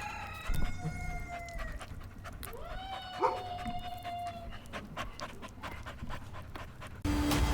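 Two long, drawn-out animal calls, each holding a steady pitched note before trailing off, the second rising into its held note, with scattered small clicks. Near the end the sound switches abruptly to louder steady noise with a low hum.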